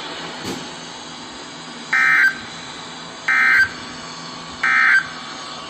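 Three short bursts of NOAA Weather Radio SAME digital data tones, each about a third of a second long and a little over a second apart, over faint radio hiss: the end-of-message signal closing an EAS alert.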